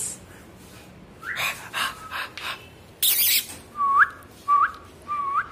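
German Shepherd whining: short whines that hold one pitch and then hook sharply upward, repeating about every half second from about four seconds in. A brief breathy hiss comes just before them.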